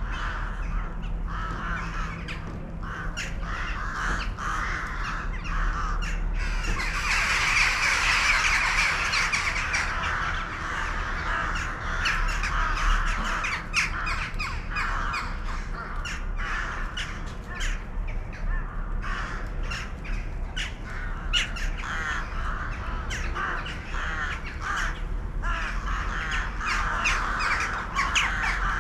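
A flock of birds calling, many short calls overlapping throughout, swelling into a dense chorus about seven to ten seconds in.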